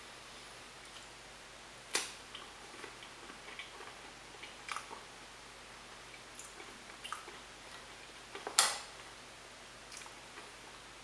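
Opening and eating a ration's processed cheese. Scattered soft clicks and crinkles of the pack and mouth sounds, with a sharp louder click or crunch about two seconds in and a louder one about two-thirds of the way through.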